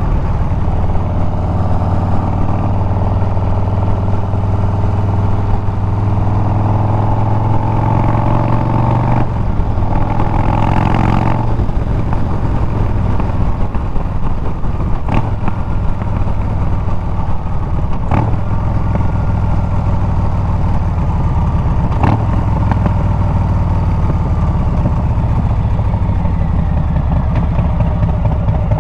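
Harley-Davidson Milwaukee-Eight 114 V-twin running through a Bassani exhaust while under way, its pitch climbing steadily over the first several seconds as the bike accelerates. A brief hiss comes about ten seconds in, and three sharp clicks sound in the second half.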